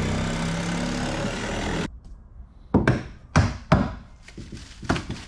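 A power tool runs for about two seconds and cuts off abruptly. Then come about five sharp knocks, like blows on wood, as a rotted boat floor is torn out.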